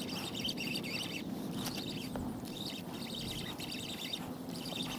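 Fishing reel being worked to fight and wind in a hooked fish: a rapid clicking chatter that comes in short runs with brief pauses.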